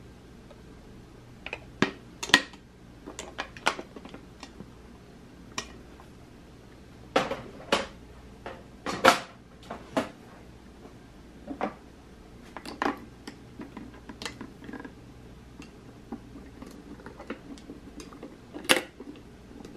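Hard Lucite plastic handbags being handled: scattered sharp clicks and clacks as the cases, lids and metal clasps knock and are set down. The clicks come in clusters, the loudest a couple of seconds in and about nine seconds in.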